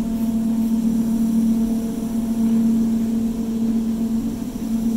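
Aerial tram haul rope running around the bullwheels in the top station, a steady hum at one pitch with fainter overtones above it, vibrating through the building.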